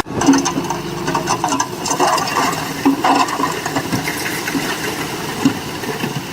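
Earthmoving machinery at work on stone fill: irregular clattering and knocks.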